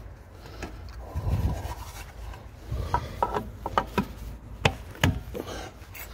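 Rubbing and handling noises, with a run of sharp clicks and knocks in the second half.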